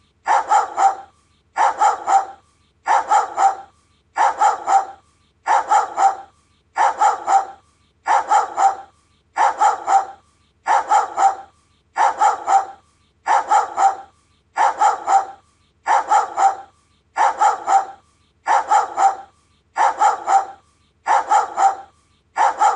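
A Doberman barking in quick double barks. A pair of barks comes about every 1.3 seconds with machine-like regularity, like a looped recording.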